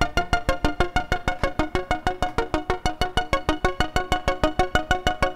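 Eurorack modular synthesizer playing a fast arpeggio of short, plucked notes, about eight a second. The pitches step up and down, set by a hand on the ribbon controller.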